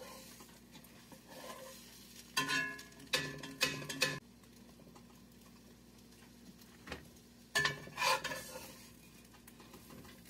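Metal spatula scraping and clattering against a cast-iron skillet as a large omelette is lifted and folded, in a quick run of strokes a few seconds in, a single knock near the middle and another run about eight seconds in, over a faint sizzle.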